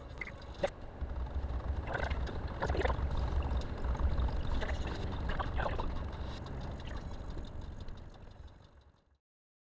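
A car driving slowly, heard from inside the cabin: a steady low road and engine rumble with a few clicks and rattles, the sharpest about a second in. It fades out and cuts to silence just before the end.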